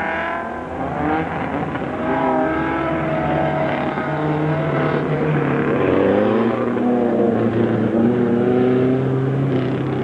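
Competition car's engine on a hill-climb run at high revs, its pitch dropping and climbing again as it changes gear.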